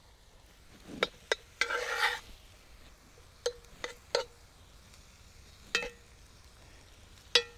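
Metal utensil stirring ground beef in a cast-iron Dutch oven, clinking against the pot about seven times, each clink ringing briefly, with one short scrape about two seconds in.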